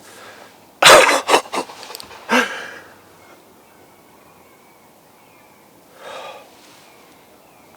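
A man breathing hard: a loud forceful exhale about a second in, a few shorter puffs of breath, then a voiced sigh. A fainter breath follows a few seconds later.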